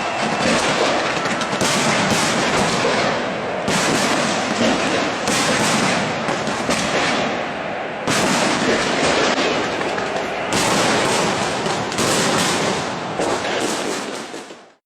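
Fireworks barrage set off at close range: dense, continuous crackling and popping, with louder bursts every second or two.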